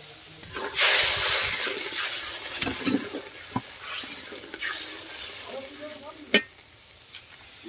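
Liquid poured into hot oil and sauce in a metal kadai bursts into a loud sizzle about a second in, then dies down. A steel spatula stirs and scrapes the pan, with a few sharp clinks against its side.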